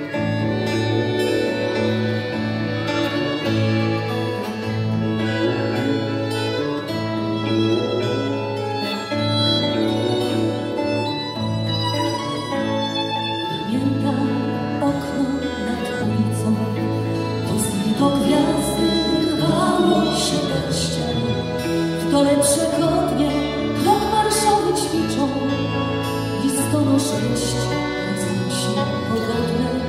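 Live folk band music: accordion, acoustic guitar, electric guitar and violin playing together. The sound grows fuller and busier from about halfway through.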